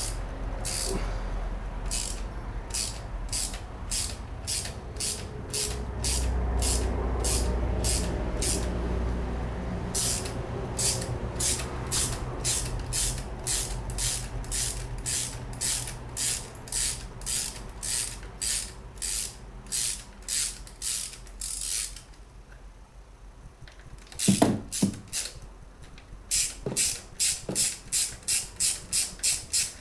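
Ratchet wrench clicking in steady runs, about two clicks a second, as a 10 mm bolt is turned. The clicking stops about 22 seconds in, a couple of dull clunks follow, then quicker ratcheting resumes near the end.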